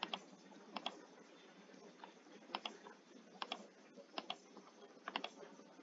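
Faint clicks of a computer mouse and keyboard, mostly in quick pairs, about six times over a few seconds.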